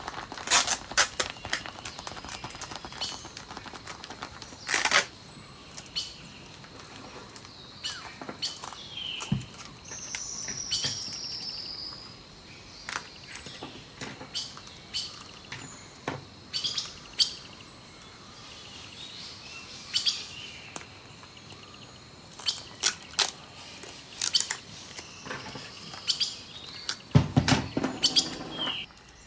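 Small birds chirping and calling over and over, short chirps and falling whistles, with scattered sharp clicks and a brief burst of rustling near the end.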